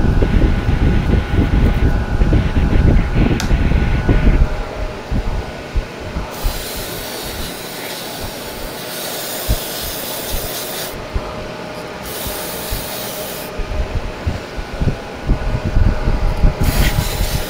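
Rubbing and scraping on brake parts for the first few seconds, then several long hissing sprays of aerosol brake cleaner as the caliper is cleaned.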